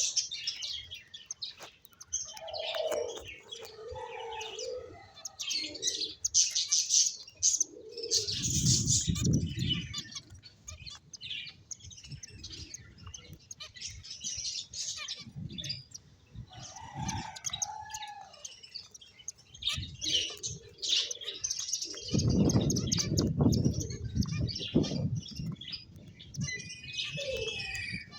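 Pet finches chirping, a rapid jumble of short high calls from several birds, with a few lower calls mixed in. Twice, around a third of the way in and again later, there is a longer spell of wing flapping.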